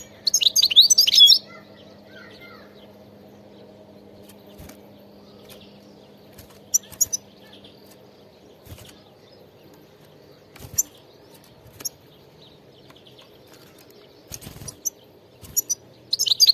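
European goldfinch singing in short twittering phrases: a loud burst in the first second or so, scattered single chirps through the middle, and another burst near the end. A faint steady low hum runs underneath.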